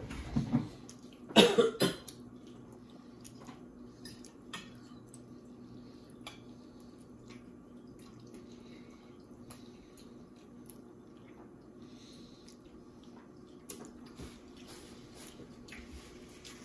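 A cough-like burst right at the start and a louder one about a second and a half in. After that, quiet room tone with a faint steady hum and scattered soft clicks of a fork in a bowl.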